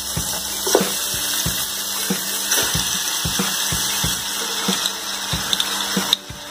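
Raw chicken pieces dropping into hot oil in an aluminium pot, the oil sizzling steadily with scattered pops and crackles.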